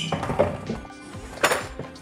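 A cardboard box of bagged hardware being lifted and moved, giving a few sharp knocks and a rattle, the loudest knock about a second and a half in. Steady background music plays underneath.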